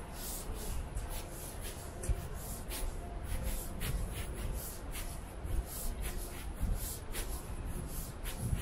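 Footsteps at a steady walking pace, a short scuff about every half second or so, over a low steady city rumble.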